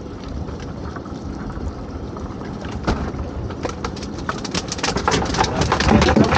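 Lobster pots and rope being handled aboard a small open boat. Dense rattling and clattering starts about three seconds in and gets louder toward the end, over a low steady rumble.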